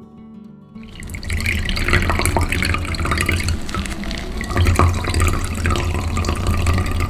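Carrot juice poured in a stream into a glass measuring jug, splashing steadily as it fills. It starts about a second in, after a brief tail of acoustic guitar music.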